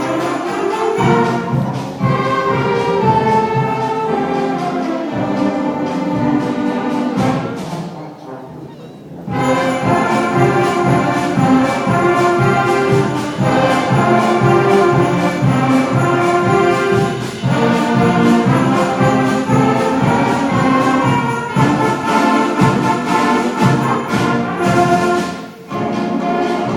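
Middle school band playing a Christmas piece, brass instruments prominent, with sleigh bells jingling. The music drops away briefly about eight seconds in, then returns at full level.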